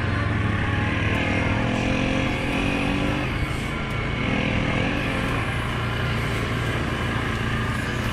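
Suzuki KingQuad 750 ATV's single-cylinder four-stroke engine running while riding, its pitch rising and falling with the throttle through the first few seconds, then holding steadier.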